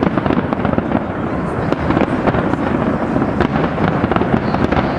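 Large fireworks display: a dense, continuous barrage of rapid bursts and crackling with no break.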